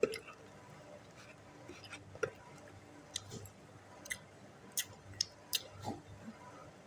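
Close-miked chewing of pempek, the Palembang fish cake, with a scattering of short, sharp wet mouth clicks.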